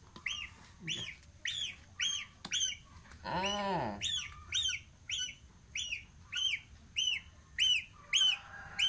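Baby goose (gosling) peeping over and over, about two short high peeps a second, each rising and falling in pitch. One longer, lower sound cuts in a little over three seconds in.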